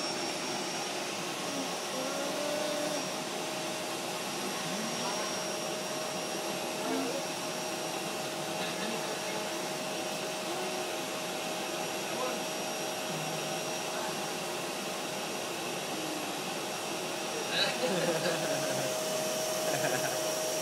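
Vacuum cleaner running steadily: an even motor noise with a constant whine over it. A few brief louder sounds break in about three-quarters of the way through.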